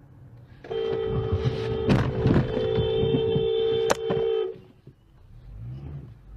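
Car horn blaring, held steadily for about four seconds with two sharp knocks during it, as a vehicle cuts across in a near-collision. Low road and engine noise follows.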